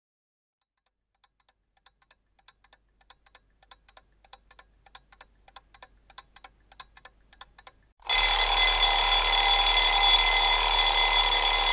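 A clock ticking steadily, fading in and growing louder. About eight seconds in, a loud alarm clock starts ringing and keeps on ringing.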